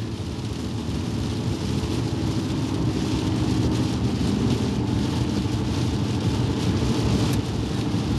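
Heavy rain hitting a car's windshield, heard from inside the moving car over the low steady rumble of the car on the wet road, growing a little louder over the first few seconds.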